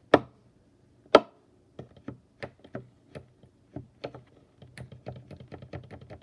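A run of light, irregular clicks and taps, with two louder knocks: one at the start and one about a second in.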